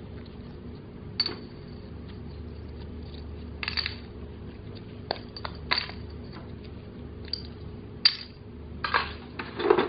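Plastic toy coins clicking and clattering as they are handled and broken off their plastic sprue frame: a run of sharp, irregular clicks, about eight in all, loudest near the end.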